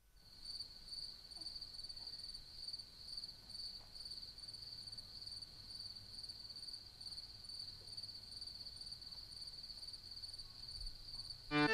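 Crickets chirping in a steady, unbroken high trill. Music comes in right at the end.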